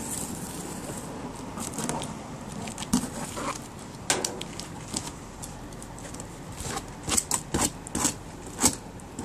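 A taped cardboard shipping box being handled and opened: cardboard and packing tape scraping and crackling, with a run of sharp clicks and taps in the second half.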